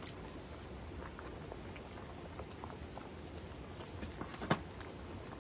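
Stew simmering in a metal pan, a steady bubbling with small scattered pops. One sharp clink of utensils stands out about four and a half seconds in.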